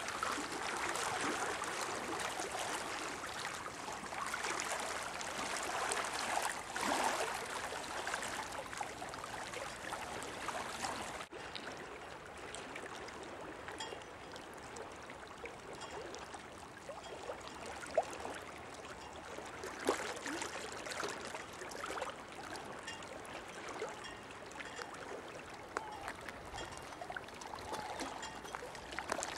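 Shallow lagoon water lapping and trickling among stones at the shoreline, with a few small splashes. The sound is fuller for the first ten seconds or so, then changes suddenly and goes on softer.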